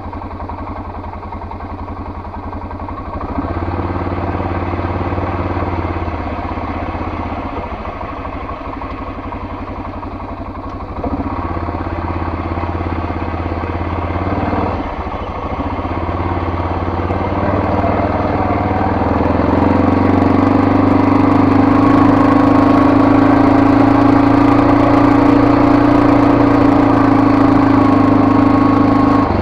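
ATV (four-wheeler) engine running steadily under throttle, stepping up in level about three seconds in and again around eleven seconds, then climbing to its loudest over the last ten seconds.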